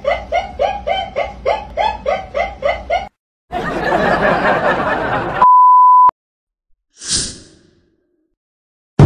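A woman laughing hard in a rapid, rhythmic run of high-pitched bursts, about four a second, that stops abruptly about three seconds in. After a short gap come nearly two seconds of hissing noise, then a loud steady beep of under a second, then a brief whoosh.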